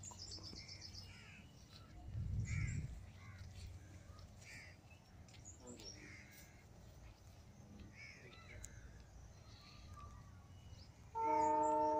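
Birds calling outdoors: short calls repeating every second or two, with a brief high trill right at the start. A low rumble comes about two seconds in, and near the end a loud steady pitched tone starts abruptly.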